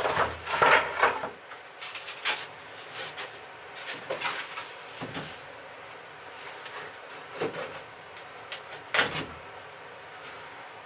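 Old wooden boards being handled and set down on a wooden frame, knocking and scraping against each other: a loud cluster of wooden knocks at the start, scattered smaller bumps and scrapes after, and another sharp knock near the end.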